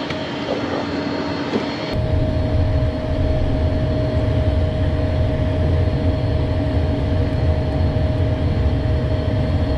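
Steady interior noise of an Embraer Phenom 100 light jet in climb: the twin turbofans and rushing airflow make a constant drone with a faint steady whine. About two seconds in, the sound shifts to a heavier low rumble.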